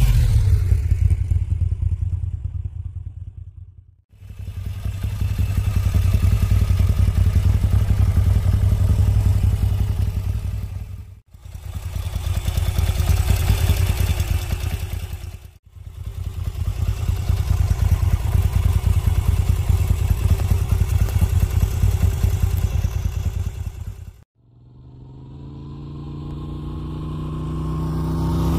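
Moto Guzzi V7 Stone's transverse V-twin engine. First the bike pulls away and fades. Then come several close-up stretches of the engine running steadily, each broken off by an abrupt cut, and near the end the bike comes back toward the listener, growing louder.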